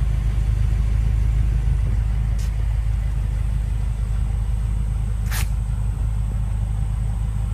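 A car engine idling: a steady low rumble with no revving. Two faint short clicks come through over it, about two and a half and five and a half seconds in.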